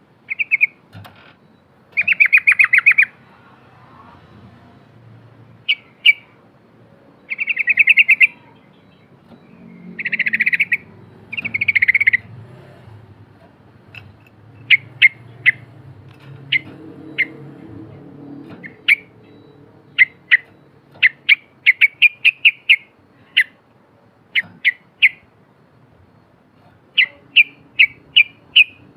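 Yellow-vented bulbul (trucukan) singing: fast rattling chatters about 2 and 7 seconds in, fuller bubbling phrases around 10–12 seconds, then a long series of short, sharp chirps, some in quick runs, through the second half.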